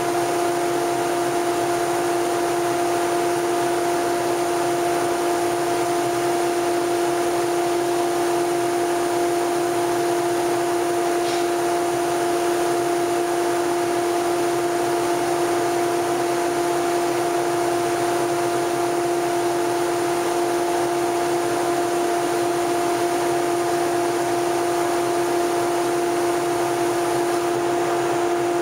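Powder-coating spray booth running: the extraction fan's steady drone with a constant low two-note hum, under the hiss of air and powder from the electrostatic spray gun.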